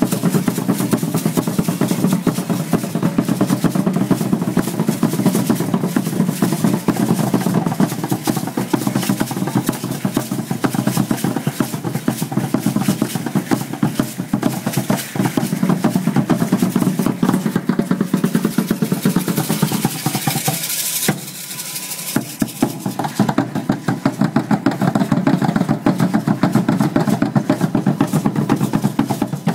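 Upright Aztec dance drums played in a fast, steady, driving beat. The drumming thins out briefly a little past two-thirds of the way through, then picks up again.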